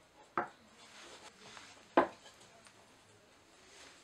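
Sharp knocks of a hinged pine board being handled, wood striking wood: a lighter knock a little way in, a louder one about halfway through, and another right at the end.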